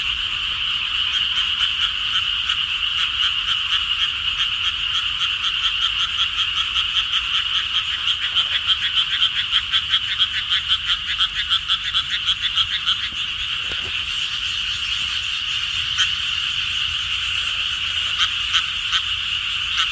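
A chorus of frogs calling, many rapid pulsed croaks overlapping in a continuous high-pitched racket, thickest in the middle and thinning to separate calls near the end.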